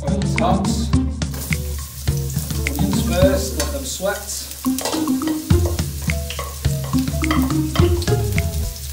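Chopped red onion sizzling in hot oil in a pot as it is scraped in from a plate and stirred with a fork, the sizzle starting about a second in.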